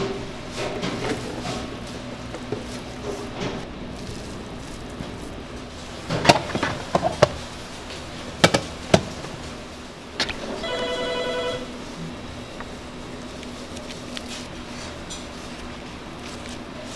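A few sharp clacks of plastic food containers being handled at a steel prep counter, then, a little after ten seconds in, about a second of pulsing electronic ringing tone, over a steady low hum.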